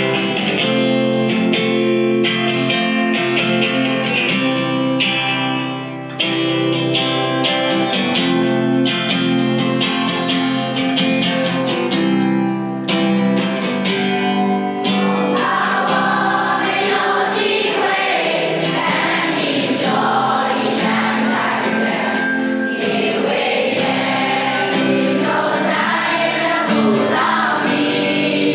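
Music: a group of voices singing together with plucked guitar accompaniment. The first half holds long, steady chords; about halfway through it becomes busier, with a moving melody over the chords.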